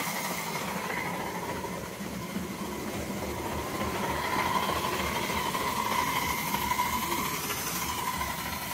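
Miniature vertical-boiler steam locomotive running along the track: a steady mechanical running noise with a thin whine, growing louder around the middle as it passes close.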